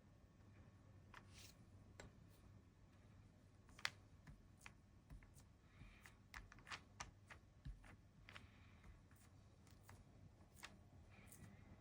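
Near silence broken by faint, irregular small taps and clicks of hands working at a desk with paper and seal-carving tools, a few a second in the middle, the sharpest about four seconds in, over a low steady hum.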